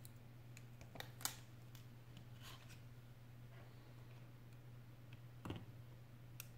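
Faint clicks and taps of small parts being handled and pressed into place in an opened iPhone 8 Plus, a handful of separate ticks with the clearest about a second in, over a steady low hum.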